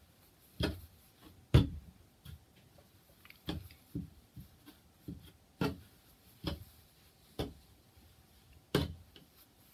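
Irregular soft knocks and brushing, about ten in all, from bare hands working giant merino wool roving into knit stitches on a tabletop; the loudest knock comes about one and a half seconds in.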